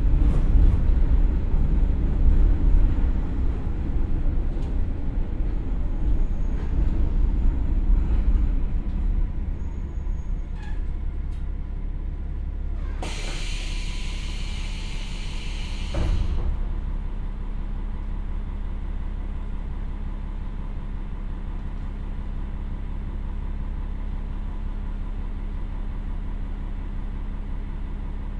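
KiHa 47 diesel railcar with a Komatsu engine braking to a stop, heard inside the passenger car: the running rumble fades, a loud hiss of brake air lasts about three seconds near the middle, a knock comes as it stops, and then the engine idles steadily.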